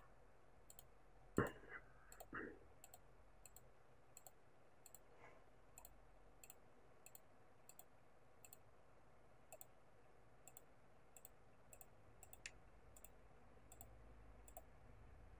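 Computer mouse clicking while selecting: a couple of sharp clicks about a second apart near the start, a few fainter ones later, otherwise near silence.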